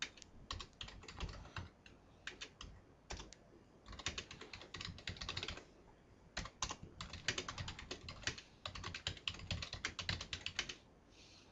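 Typing on a computer keyboard: runs of quick keystrokes broken by short pauses, the longest about halfway through and near the end.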